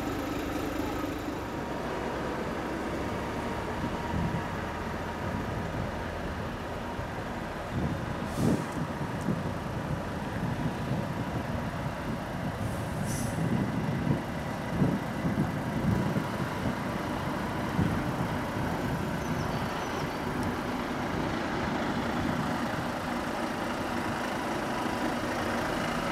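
Heavy trucks running at low speed with a steady engine rumble. Air brakes hiss briefly twice, about a third of the way and halfway through.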